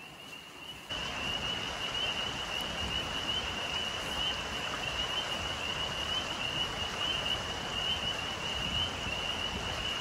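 Steady outdoor ambience: the rush of a creek with a continuous high-pitched chorus over it, starting abruptly about a second in.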